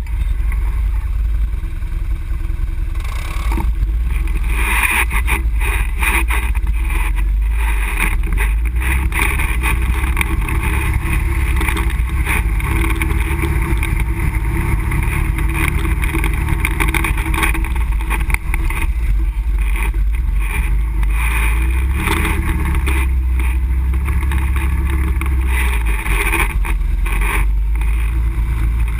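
ATV engine running under way on a rough dirt trail, heard from on board, with frequent short knocks and rattles of the machine over bumps.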